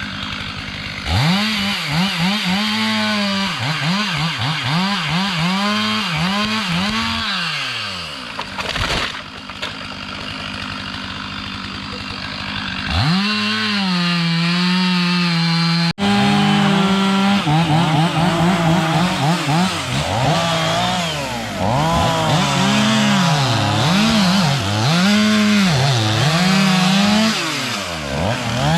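Two-stroke chainsaw cutting diseased ash wood, its engine pitch swinging up and down about once a second as the chain bites and frees. It settles to a steadier running note near the start and for a few seconds in the middle, then the rising and falling revs resume.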